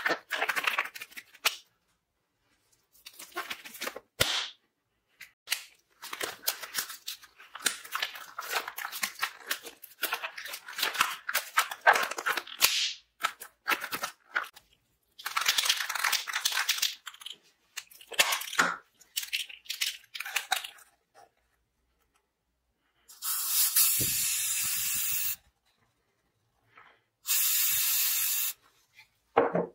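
Thin disposable gloves being pulled on and worked over the hands, giving a long run of crinkling, snapping rustles. Near the end, an aerosol spray paint can hisses twice, once for about two seconds and then for about a second, as red paint is sprayed into a plastic cup.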